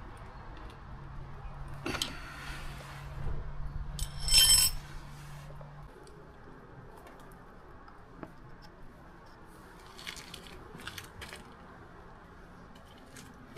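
Metal tools and parts clinking and rattling while a motorcycle front brake is worked on and bled, with a loud ringing metallic clatter about four seconds in and lighter clicks later. A faint steady hum stops about halfway through.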